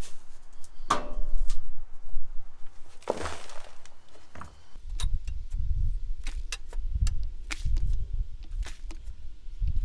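Somewhat dry foundry molding sand shoveled onto a plastic tarp: two rushes of pouring sand, about a second and about three seconds in, then scattered clicks and low thumps.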